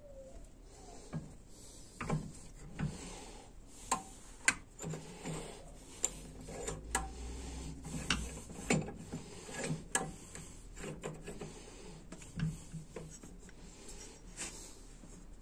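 Irregular metallic clicks and knocks from an A604/41TE transmission's input clutch drum assembly as it is handled and turned over by hand, its parts shifting against each other.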